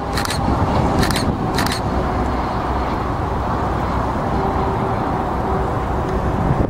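Steady rumble with a faint whine from the twin turbofan engines of a Cessna Citation CJ3 business jet passing on final approach. Three sharp clicks come in the first two seconds.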